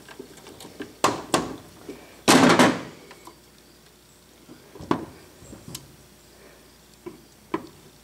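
Metal knocks and clunks as the rotor of a half-horsepower Dayton capacitor-start motor is worked out of its stator by hand. There are two sharp knocks about a second in, a louder scraping clunk a little over two seconds in, then a few light clicks.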